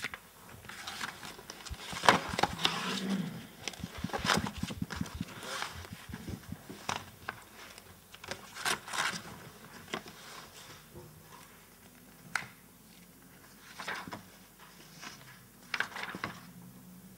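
Paper rustling and book pages being turned and shuffled on a desk, with scattered light knocks and scrapes as sheets and a book are handled.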